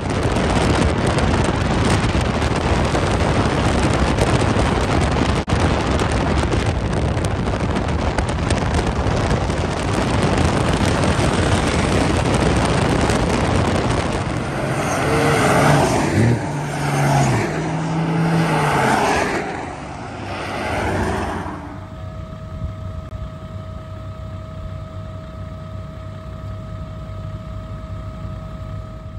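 A 4WD driving on beach sand, heavy wind rushing over the microphone, with the engine revving up and down about halfway through. Near the end a steady hum at two pitches takes over.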